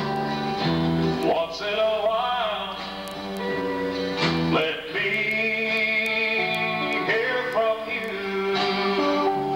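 A live band playing a slow country song: electric bass and drums under long held melody notes that waver.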